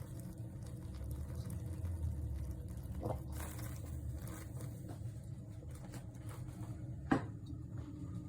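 Liquid trickling and pattering over a steady low hum, with a small click about three seconds in and a sharper knock about seven seconds in.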